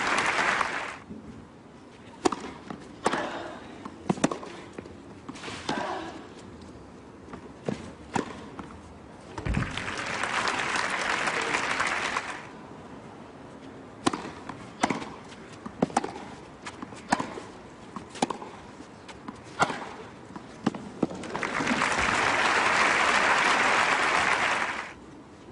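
Tennis rallies on clay: sharp racket strikes and ball bounces in two runs. After each run comes a burst of crowd applause, with a third burst near the end.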